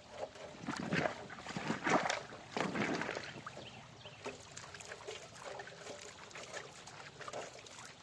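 Water sloshing and splashing as sluice mats are washed out to free the gold-bearing concentrate. There are a few louder surges in the first three and a half seconds, then quieter, softer water sounds.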